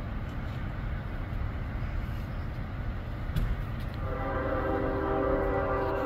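A low street rumble, then about four seconds in a loud, sustained chord of several steady tones begins and holds.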